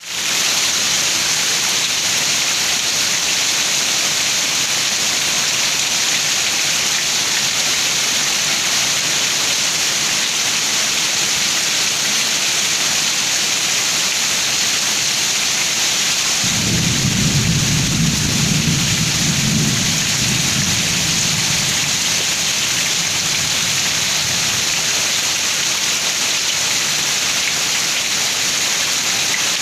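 Heavy rain pouring down in a steady hiss. A little past halfway a low rumble of thunder breaks in suddenly and rolls on for several seconds before fading back under the rain.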